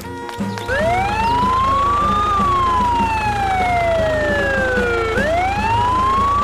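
Emergency vehicle siren wailing: its pitch rises quickly, falls slowly over about three seconds, and begins to rise again about five seconds in, over a steady low rumble.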